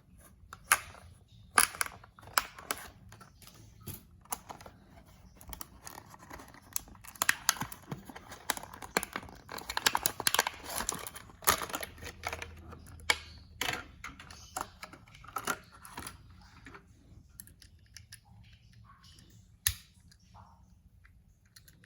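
Irregular small clicks, taps and rustles from hands handling a Matchbox die-cast toy car and its packaging, busiest in the middle and thinning out toward the end.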